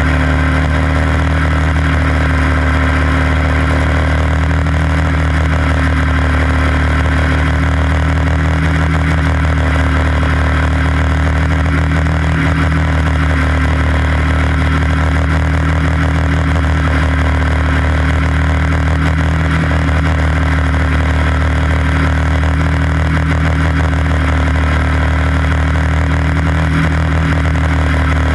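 A quarter midget race car's single-cylinder engine running flat out at a nearly steady pitch, heard loud and close from on board the car.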